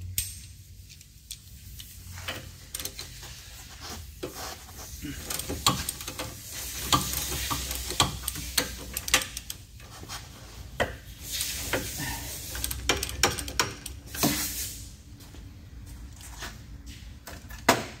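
Hand ratchet wrench with a 21 mm socket working a bolt on a car's rear brake assembly: irregular metallic clicks and clinks of the ratchet and socket, with spells of scraping and rubbing metal as the bolt is loosened.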